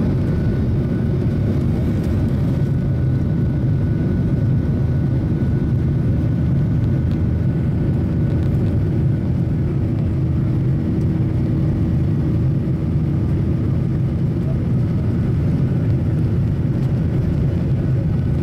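Steady cabin noise of a Boeing 737 rolling on the ground: jet engines running with a low, even rumble and a faint steady whine.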